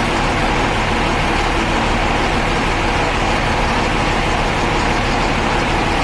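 Mercedes-Benz diesel bus engine running steadily.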